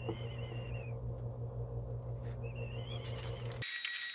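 Steady low machine hum from the powder-coating booth setup, with a faint wavering high whistle twice. About three and a half seconds in it cuts to a steady high-pitched tone with light ticking.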